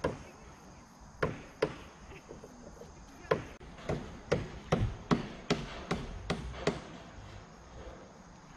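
Construction-site noise: a run of about a dozen sharp knocks, coming faster in the middle and stopping about seven seconds in.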